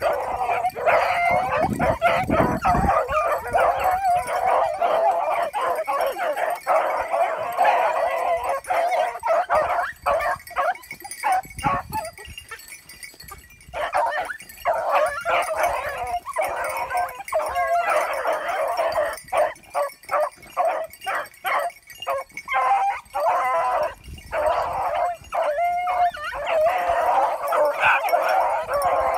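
A pack of scent hounds baying and yelping in many overlapping barks and howls, giving tongue as they hunt a rabbit. The chorus thins out for a moment about twelve seconds in, then picks up again.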